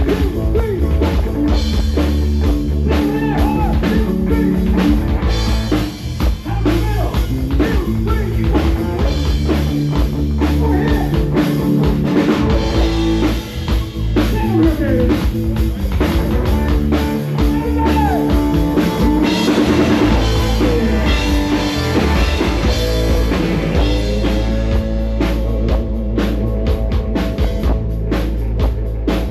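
Live rock band playing: a drum kit beating steadily under bass and electric guitar, with lead lines that bend up and down in pitch.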